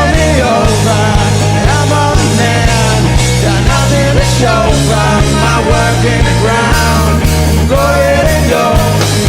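Rock music with a steady drum beat, a bass line and a melody over it.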